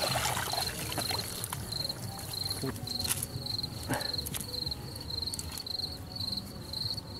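An insect, cricket-like, chirping in short high trills about two or three times a second, with a few sharp clicks and rustles from the wet cast net being handled on the grass.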